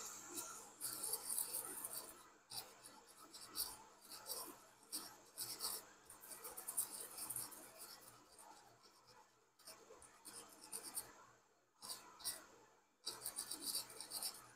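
A brush scrubbing a PS5 power-supply circuit board clean: a run of fast, scratchy strokes that stop briefly a few times.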